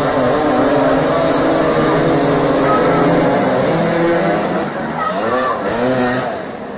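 Several motoball motorcycles running and revving together, their engine pitches rising and falling over one another as the riders manoeuvre; the sound eases off somewhat near the end.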